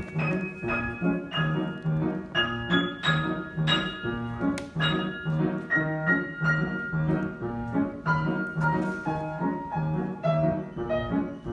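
Piano playing a steady stream of chords, over a low bass note struck about twice a second.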